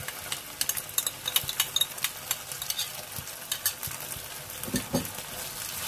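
Chili paste and sauce sizzling in a hot frying pan, with frequent sharp clicks and scrapes of utensils against the pan and bowl as the sauce is scraped in and stirred. The clicks thin out after about four seconds while the sizzle goes on.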